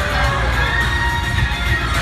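The ride's finale soundtrack: music with recorded cheering and children's voices, loud and steady over a low rumble.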